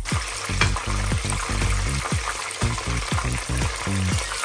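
A breaded milanesa frying in hot sunflower oil with garlic cloves: a dense, steady sizzle that starts as the cutlet settles into the oil.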